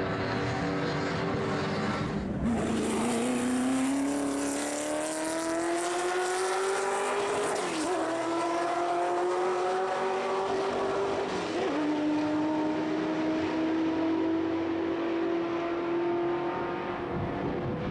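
Ford V8 race car engine under hard acceleration: its pitch drops sharply about two seconds in, then climbs steadily through two gear upshifts, about eight and twelve seconds in.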